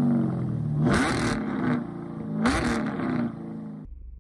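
Car engine revving: two quick blips of the throttle about a second and a half apart, the pitch rising each time over steadier running, then dying away near the end.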